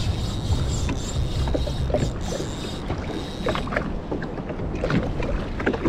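Wind buffeting the microphone over water lapping against a jet ski's hull, with scattered short clicks and knocks. A faint steady high tone runs underneath and stops about three and a half seconds in.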